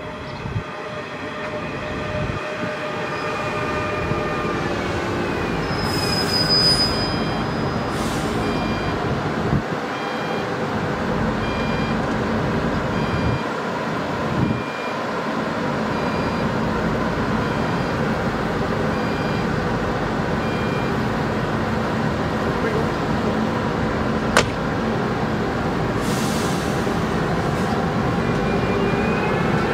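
DSB ER (IR4) electric multiple unit braking to a stop at the platform, its motor whine falling in pitch. About six seconds in comes a high tone and a hiss as the doors unlock, followed by short beeps about once a second while it stands. Near the end there is a sharp click and a hiss, and the motor whine rises as the train starts to pull away.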